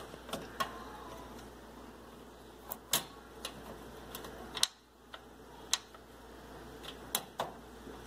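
Plastic clicks and taps from a GE microwave's touchpad panel as it is pressed and clipped back onto the control housing: about ten irregular sharp clicks, the loudest just before five seconds in.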